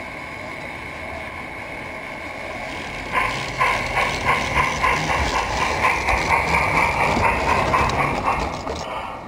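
Large-scale model steam locomotive and goods wagons on a garden railway: a steady hum and thin whine as it approaches, then from about three seconds in a rhythmic clatter, roughly three beats a second, as the train passes close by, easing off near the end.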